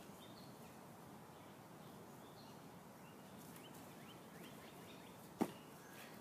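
Faint outdoor ambience with small birds chirping now and then, and one short, sharp thump a little past five seconds in.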